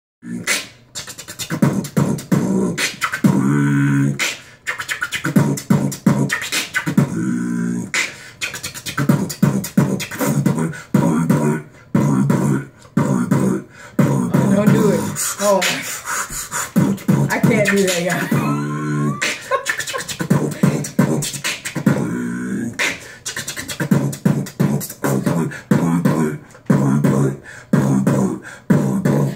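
Vocal beatboxing: a steady rhythm of mouth-made kick and snare clicks and pops laced with short hummed bass tones.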